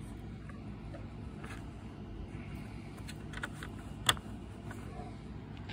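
Handling of a plastic wireless router and its power cable: faint rustles and light clicks, then one sharp click about four seconds in as the power adapter's plug is pushed into the router's power port.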